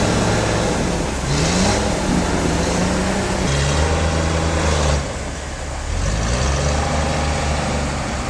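An engine running steadily, revving up twice (about a second in and again about six seconds in), with patches of hissing noise coming and going.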